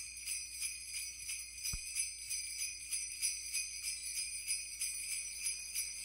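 Sleigh bells jingling in a steady rhythm, a few shakes a second, fairly quiet, as the opening of a Christmas song.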